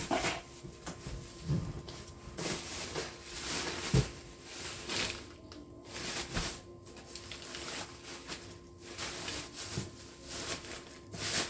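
Hands rummaging through goods packed in a large cardboard box: irregular rustling of plastic packaging and items shifting, with a single knock about four seconds in.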